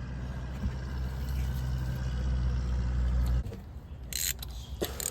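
Steady low engine hum, like a motor vehicle running nearby, that cuts off about three and a half seconds in, with a couple of faint metallic clicks.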